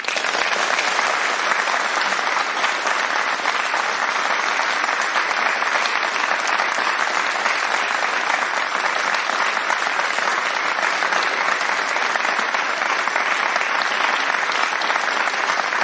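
Applause: many hands clapping in a dense, steady din that starts suddenly.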